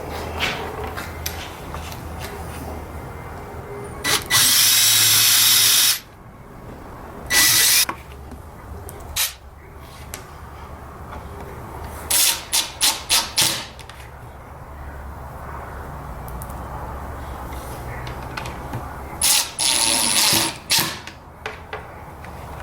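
Power drill with a tapered bit running in short bursts, drilling pilot holes for the screws of drawer-slide front latches: two runs of about two seconds, a shorter one, and a quick string of trigger pulses. A faint low hum continues underneath.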